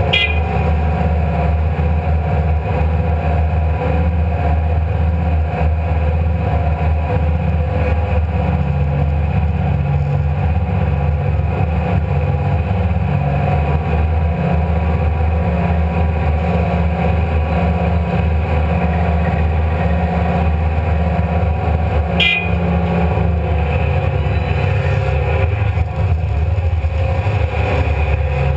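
Komatsu PC300 hydraulic excavator's diesel engine running steadily under working load, heard from inside the cab, with the pitch wavering slightly as the machine swings and dumps. A single sharp clack about three-quarters of the way through.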